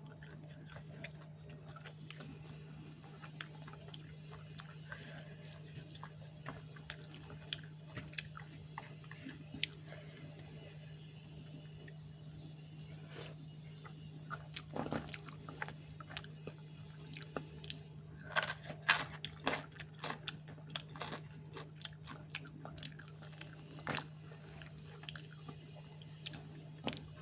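Close-up eating sounds: chewing and biting food, with short crunches and mouth clicks coming and going, busiest in the second half. A steady low hum runs underneath.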